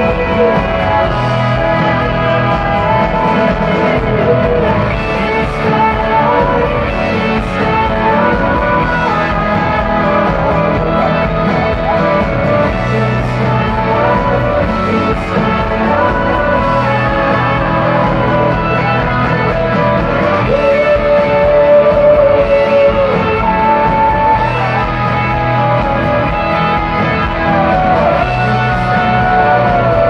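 Live pop performance through a stage PA: a male singer holding long sung notes into a microphone over an instrumental backing.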